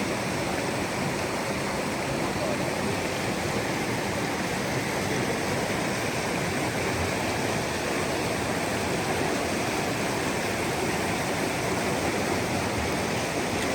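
Fast-flowing river water rushing steadily, an even unbroken rush.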